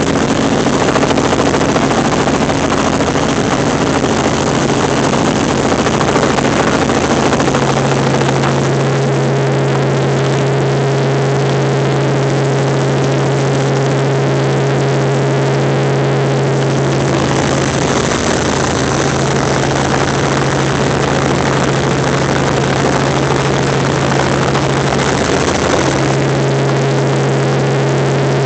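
Helicopter engine and rotor noise heard from inside the cabin: a loud, steady drone with a strong low hum, its tone shifting slightly a few times.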